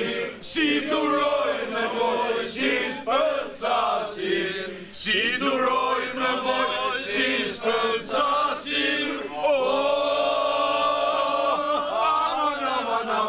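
Several men singing together without accompaniment, voices wavering and ornamented, with a long held chord near the end.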